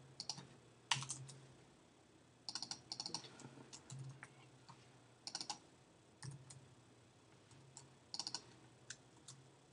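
Computer keyboard keystrokes, faint, coming in short quick bursts with pauses between them.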